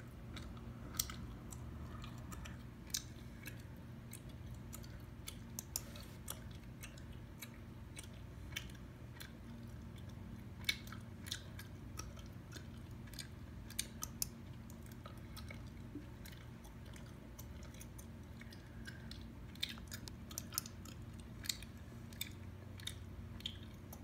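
Gum being chewed close to the microphone: irregular wet clicks and smacks, a few a second, over a steady low hum.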